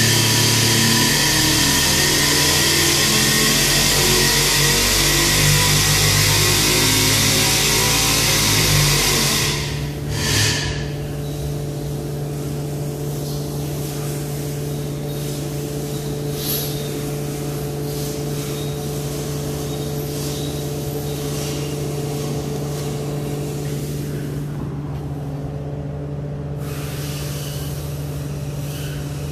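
370ci LY6-based LS V8 running hard under load on an engine dyno during its run-in, then dropping off about ten seconds in to a much quieter, steady running note.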